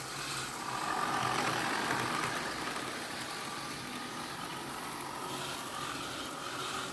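OO gauge model trains running round the layout: a steady, continuous mechanical running sound of model locomotive motors and wheels on track.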